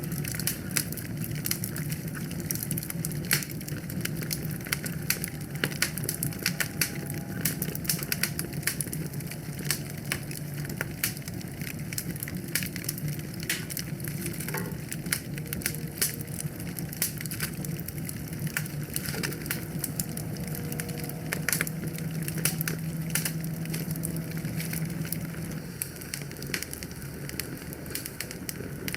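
Wood fire burning in a fireplace, crackling with frequent sharp pops over a steady low rush of flame.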